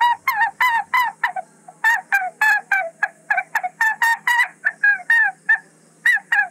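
A rapid run of short, pitched animal calls, about three to four a second, each dropping a little in pitch, broken by two short pauses.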